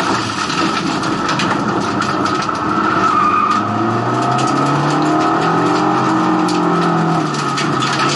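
Race car engine heard from inside the stripped, roll-caged cockpit, pulling hard with its pitch rising from about three seconds in, then dropping off near the end, over heavy tyre and road noise with scattered sharp clicks.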